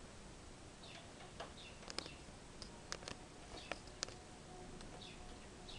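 Faint taps of small birds pecking at rice on a windowsill, with a few soft, short high chirps.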